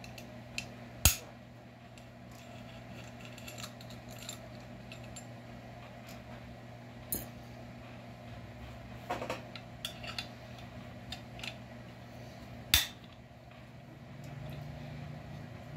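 Small metal clicks and clinks of hand tools (a long hex key and other drivers) working fasteners on a new chainsaw's plastic housing, with two sharp clicks, one about a second in and one near the end, over a steady low hum.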